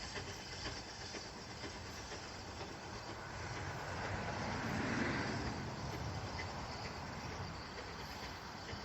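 A heritage railway train passing on the line, its rumble growing louder to a peak about five seconds in and then easing away.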